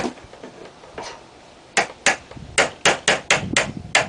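Hammer striking a wood chisel, paring glued-on old birch paneling and glue off wooden door framing. Single sharp knocks near the start and about a second in, then a quicker run of about nine strikes in the second half.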